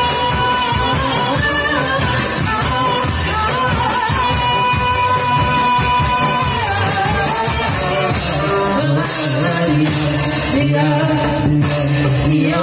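A woman singing a long, ornamented melodic line in merawis, a Gayo Islamic devotional singing style, over hand-drum beats. A lower voice joins about nine seconds in.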